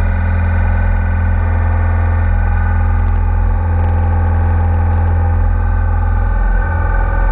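Background music with distorted electric guitar over a heavy bass.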